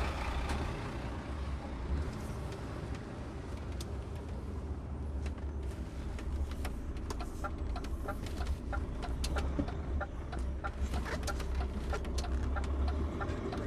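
Articulated lorry's diesel engine running low and steady, heard from inside the cab on the move, with a run of short clicks and squeaky chirps from about six seconds in.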